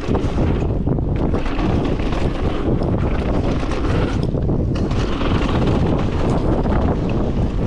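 Wind buffeting the microphone of a camera riding on an electric mountain bike at speed on a dirt trail, a constant rush mixed with uneven tyre and trail rattle.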